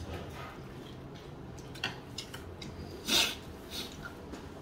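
Rubbing and scraping handling noises over a faint low hum, with a few short clicks. One louder rasping rustle comes about three seconds in.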